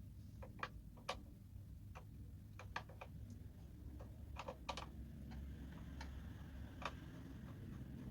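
Irregular light clicks and taps, some in quick pairs, as tools and small parts are handled during a repair, over a low steady hum.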